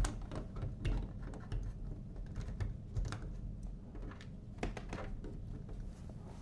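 Metal door knob hardware being handled and worked apart by hand: irregular light clicks and taps, several a second at times, as the knob is taken off its fixture.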